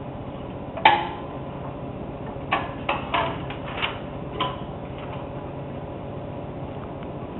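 Rank Xerox 813 desktop copier running with a steady hum. There is one sharp clack about a second in, then a quick run of clacks and rattles around three to four seconds in, as the copy and the original in its sleeve come out of the output slot and are handled.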